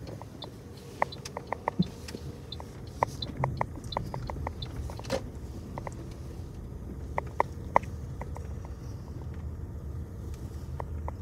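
Car cabin noise while driving slowly on an unpaved dirt road: a steady low rumble with scattered light clicks and rattles.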